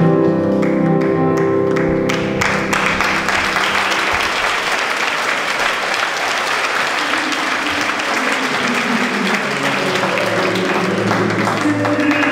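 Live music ends on a held chord about two seconds in, then an audience claps steadily; music starts up again near the end.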